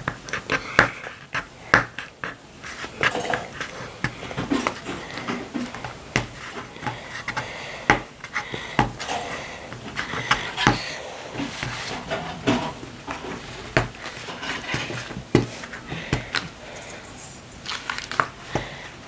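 Stickers being peeled off a sticker sheet and pressed onto a paper sketchbook page: irregular small clicks, crinkles and paper rustling.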